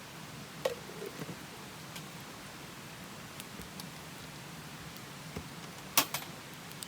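Wood fire crackling, with scattered sharp pops about a second apart over a steady hiss and one louder crack about six seconds in.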